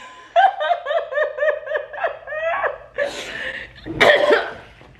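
High-pitched laughter in quick pulses, about five a second, for a couple of seconds, then two loud breathy blows of air.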